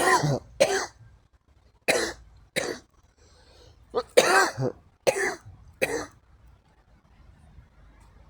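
A bout of coughing and throat clearing: about seven short, harsh coughs spread over the first six seconds, then it stops.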